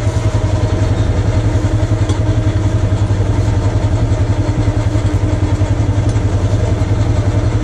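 ATV engine idling steadily, with an even low pulsing throughout.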